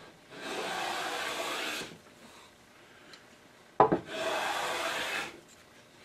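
Wooden hand plane smooth-planing quilted bigleaf maple: two long strokes shearing off fine shavings, each about a second and a half. There is a sharp knock just before the second stroke.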